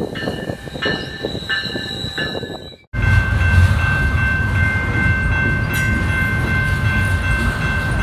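Held tones changing about every half second over a rumble, cut off abruptly about three seconds in. Then a double-stack intermodal freight train rolls past: a steady low rumble of the cars with a high steady tone held over it.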